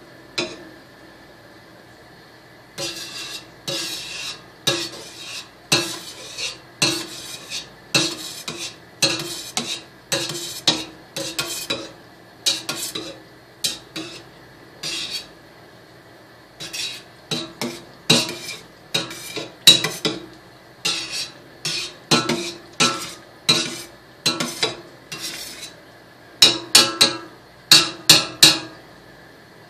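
Metal utensil stirring and breaking up cut mozzarella curd in a stainless steel pot, scraping and clinking against the pot in repeated strokes, about one or two a second. The strokes pause briefly about a second in and again around the middle, and come quicker near the end.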